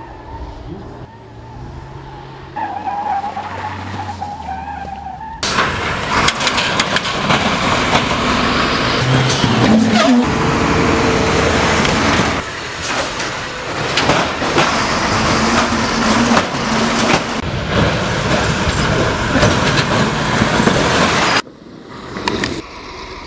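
Russian military cargo truck driving: engine running, fairly quiet and even at first. About five seconds in it becomes much louder and rougher, a dense rushing drive-by noise full of crackles, with a brief rising tone partway through. The noise drops suddenly near the end.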